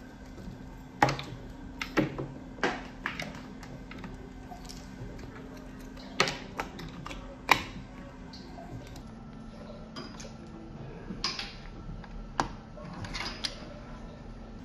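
Plastic clicks and knocks, a handful spaced a second or more apart, as blood tubing is pressed into the line holders and clamps on a Fresenius 5008S dialysis machine, over a steady low hum.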